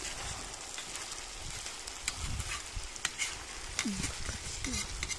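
Pilaf sizzling in a cast-iron kazan, a steady hiss, while a metal skimmer scrapes through the rice and clinks against the pot a few times as the rice is piled up over the garlic.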